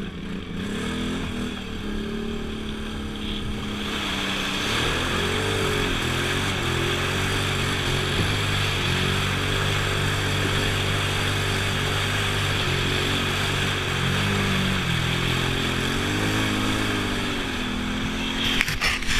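ATV engine running under load, its pitch rising and falling repeatedly as the throttle is worked. A steady rushing noise joins about four seconds in, and a few sharp knocks come near the end.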